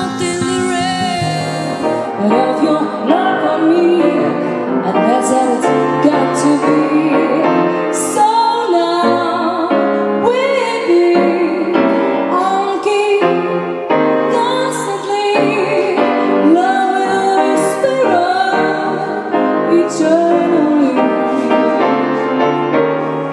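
A woman singing a song with piano accompaniment, her held notes wavering with vibrato.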